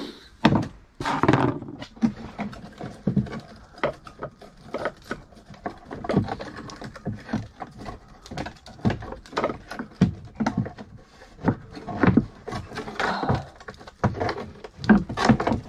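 Irregular knocks, clunks and rattles as a Lotus Esprit headlight pod and its rusted metal mechanism are handled and worked loose by hand.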